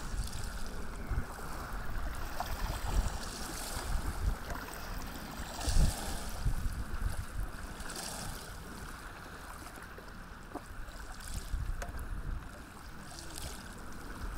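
Wind buffeting the microphone over a steady wash of small waves, with short swishes of water splashing now and then, the loudest a little before halfway.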